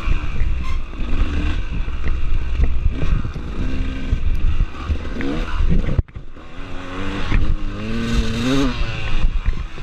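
Off-road dirt bike engine revving up and down with the throttle over a tight woods trail, with knocks and rattles from the bike over rough ground. The sound drops out suddenly about six seconds in, then the engine picks up again.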